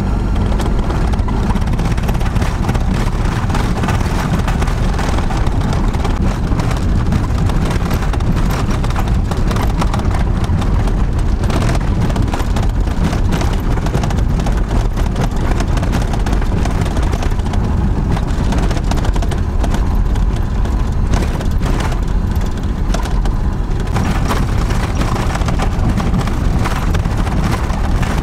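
Camper van driving over a rough, stony dirt track, heard from inside the cab: a steady rumble of engine and tyres with constant fine rattling and knocking as the body jolts over the rocks.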